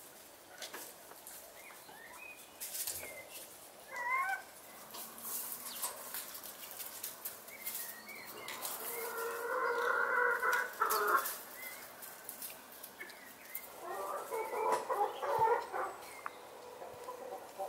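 Domestic hen clucking in choppy runs of calls, the longest stretches in the middle and near the end, with scattered light clicks of cutlery on plates.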